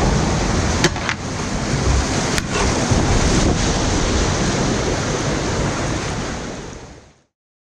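Whitewater rushing and splashing around a kayak running a rapid, heard close to the water with wind noise on the microphone. A few sharp knocks come in the first few seconds, and the sound fades out near the end.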